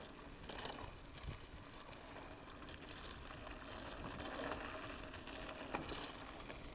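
Mountain bike rolling along a dirt road: a steady low rush of tyre noise with light rattles and one sharp click a little before the end.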